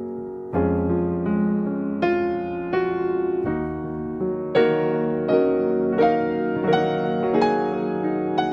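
Background music: piano or electric-piano keyboard playing a slow melody over held chords, with new notes struck about every half second to second.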